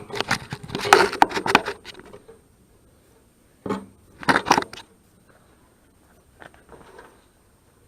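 Handling noises: a run of clattering knocks and scrapes, then two short knocks about four seconds in and a few faint ones near the end.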